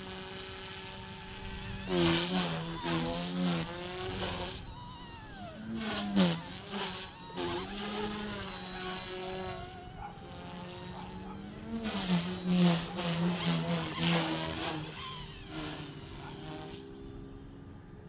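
OMPHobby M1 RC helicopter's electric motor and rotor whine, rising and falling in pitch as it manoeuvres, louder about two seconds in and again through the second half.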